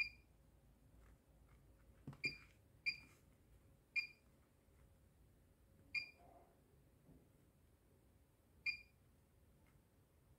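Short electronic beeps from a digital readout (DRO) keypad as its buttons are pressed to enter a five-hole bolt-circle (PCD) pattern: six single beeps at uneven intervals, with a faint knock about two seconds in.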